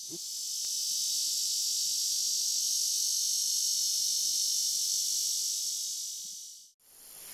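Steady high-pitched insect chorus, an even drone that fades in at the start and fades out near the end.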